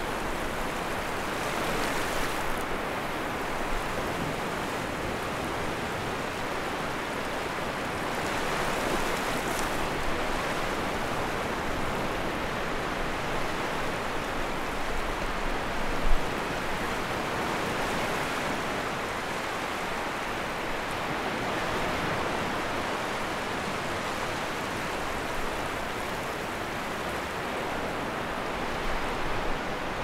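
Ocean waves on the shore: a steady rush of surf that swells with each incoming wave every several seconds. A single brief low thump about halfway through is the loudest moment.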